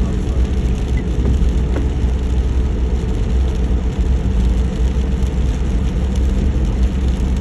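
Car running on the road: a steady, loud low rumble of engine and road noise with a faint hum.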